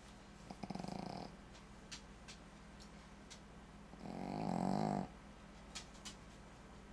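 A Shih Tzu snoring: two snores. The first, about half a second in, is short and fluttering. The second, about four seconds in, is louder and swells for about a second before it stops sharply.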